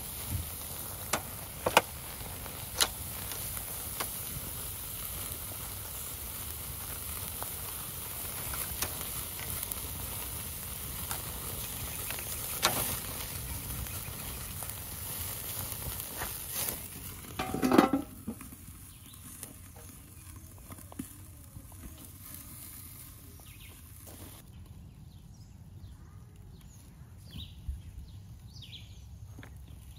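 Meaty bones sizzling over a small charcoal grill, with the fire crackling and sharp pops as fat drips onto the coals. About 18 seconds in there is a brief, louder clatter, and after it the sizzle is quieter, with a few faint bird chirps near the end.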